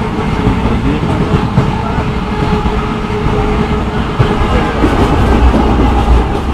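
Himalayan Queen Express passenger coach running at speed, heard from inside through an open barred window: a steady rumble of wheels on the rails with occasional knocks, growing louder in the last couple of seconds.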